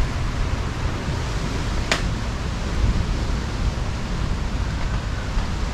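Steady rush of wind over the microphone of a camera riding along on a bicycle, with one sharp click about two seconds in.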